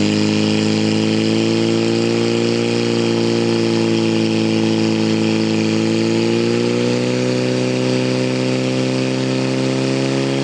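Portable fire pump's engine running at full throttle, holding steady high revs while it drives water through the hoses to the spraying jets. Its pitch rises slightly about seven seconds in.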